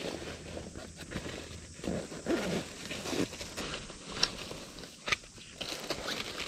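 Irregular rustling and scraping of things being handled, with a few light clicks.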